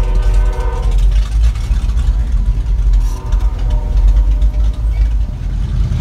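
Monster truck's engine running with a heavy low rumble, heard from inside the cab as it rolls slowly along.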